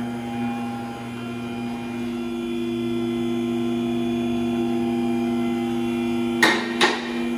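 An electric motor in a tire shop machine running with a steady hum. Near the end there are two sharp clicks about half a second apart.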